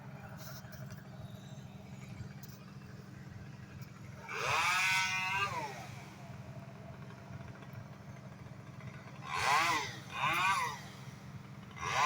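Engine revving up and back down in short bursts, four times, over a steady low hum.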